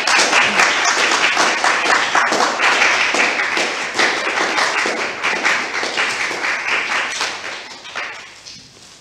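A small seated audience applauding, a dense patter of hand claps that thins and fades out near the end.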